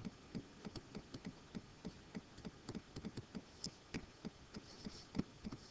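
Faint, irregular light taps and clicks, a few a second, of a pen stylus touching down on a writing tablet as an answer is handwritten and boxed in digital ink.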